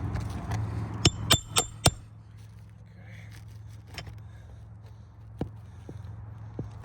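Hammer driving a roofing nail into an asphalt shingle: four quick ringing metallic strikes about a second in, roughly a quarter second apart, then a few lighter taps.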